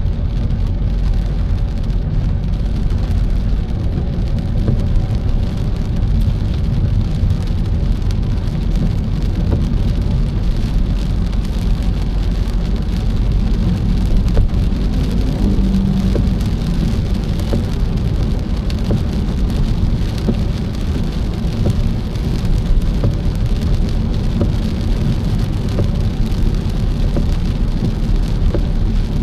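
Steady rain falling on a car during a drive, over a constant low rumble of the car in motion.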